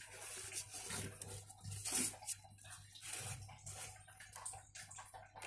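Faint, irregular rustling and scratching of newspaper cage lining as a baby Asian water monitor (Varanus salvator) is set down and crawls across it. A low steady hum runs underneath.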